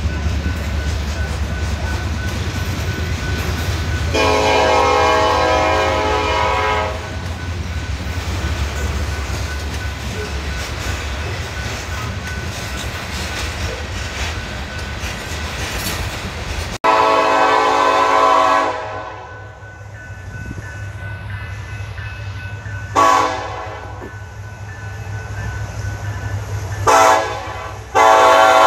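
Freight cars rolling past with a steady low rumble, and a diesel locomotive horn sounding one chord of about three seconds about four seconds in. After a sudden cut, a GE AC4400CW locomotive's horn sounds a long blast, two short blasts a few seconds apart, and a new long blast begins near the end, as for a grade crossing.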